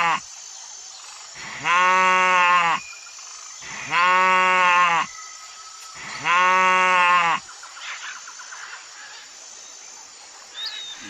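Sheep bleating: three long, steady baas about two seconds apart, with the tail of a fourth right at the start.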